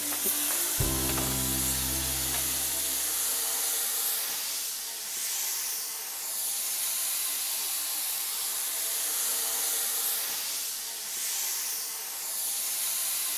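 Steady hiss of steam from a standing steam locomotive, swelling and easing every few seconds. Music fades out over the first few seconds.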